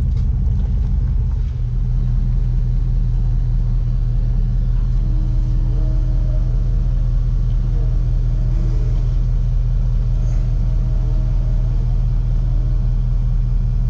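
Pickup truck engine running, heard from inside the cab as a steady low rumble. A faint wavering whine comes and goes above it in the middle.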